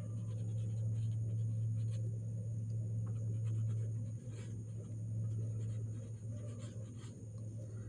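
Pen scratching on paper as a short handwritten label is written, in a run of quick, faint strokes over a steady low hum.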